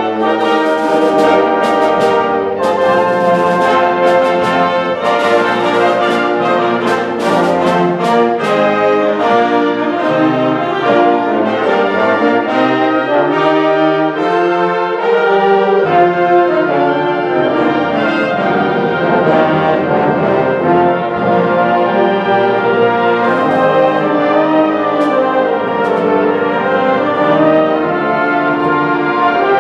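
High school symphonic band playing, brass to the fore. Sharp percussion strikes punctuate the first several seconds, and around the middle a low line in the band climbs in pitch over a few seconds.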